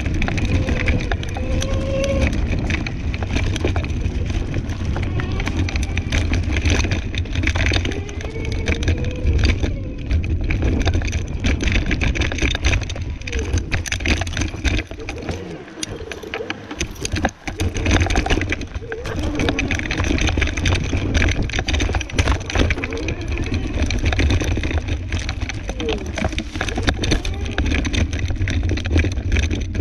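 Scooter riding over a bumpy dirt woodland trail: a steady low rumble with many knocks and rattles as it jolts over the ground, briefly quieter about halfway through.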